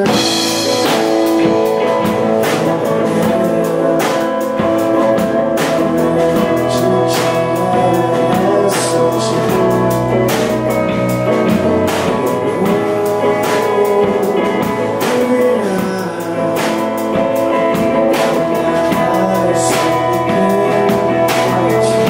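Live rock band playing a song: electric guitars, bass guitar, drum kit and a keyboard, with the whole band coming back in together right at the start after a brief break.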